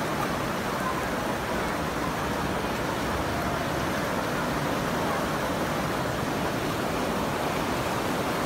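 The Ganga in flood rushing past, a steady, unbroken noise of fast-flowing muddy floodwater.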